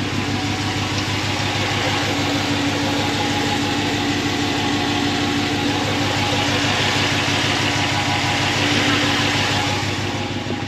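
Ram pickup truck's engine idling steadily, heard from underneath the truck near the exhaust.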